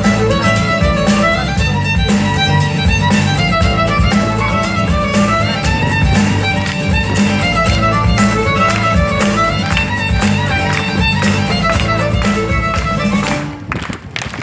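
Live music with a violin lead over a steady beat, which stops near the end.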